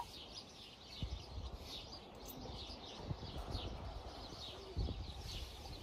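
Small birds chirping over and over in short falling notes, with wind rumbling on the microphone and gusting about a second in and again near the end.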